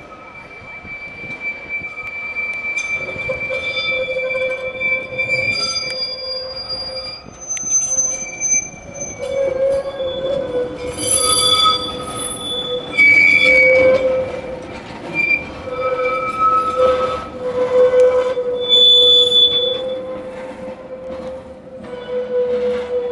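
Steel wheels of vintage Rotterdam trams squealing against the rails as they grind round tight curves of track. Several shrill tones sound together, swelling and fading again and again over a steady lower squeal.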